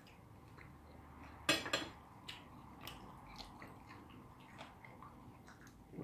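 Dinner-table sounds: scattered light clicks of cutlery against plates, with a louder quick rattle of clinks about one and a half seconds in.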